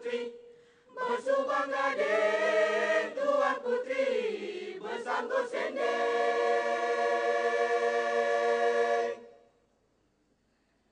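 Mixed choir of men's and women's voices singing. Short changing phrases lead into a long held chord about six seconds in, which cuts off sharply about nine seconds in.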